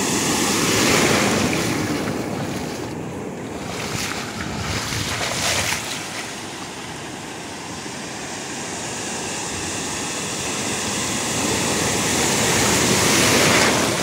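Ocean surf breaking and washing over the shallows, with wind buffeting the microphone. The wash swells loudest about a second in and again near the end, easing in between.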